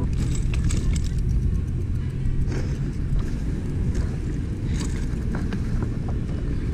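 A low steady outdoor rumble, with scattered light clicks and knocks as a bicycle and a hand-held camera are handled.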